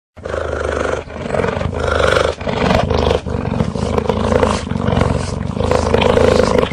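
Cheetah giving a continuous low, rough rumbling call that cuts in abruptly right at the start, with brief dips in level every second or so.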